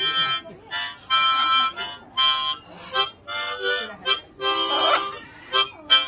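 Harmonica played in short chords, several reedy notes at once, each blast breaking off after half a second or so and starting again, about nine times.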